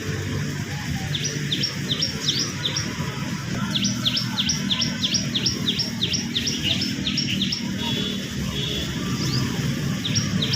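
Small bird chirping: runs of short, high, downward-sliding chirps, about five a second, about a second in and again from about four to eight seconds, with a few more near the end. A low steady rumble lies beneath.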